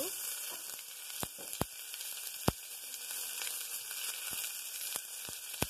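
Sliced onion hitting hot ghee with cumin seeds in a pressure cooker: a steady sizzle that starts as the onion goes in, with scattered sharp pops and crackles.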